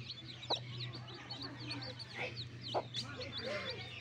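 Newly hatched chicks peeping continuously, a rapid overlapping stream of short high-pitched chirps, with a few low soft clucks from the brooding hen.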